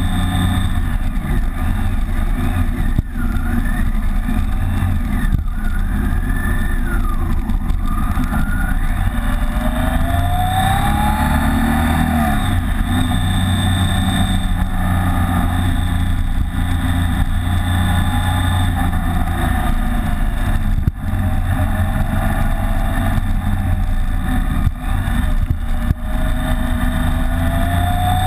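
BMW K75's three-cylinder engine running under way, its pitch rising and falling several times with the throttle through the bends, over a heavy steady rumble of wind on the microphone.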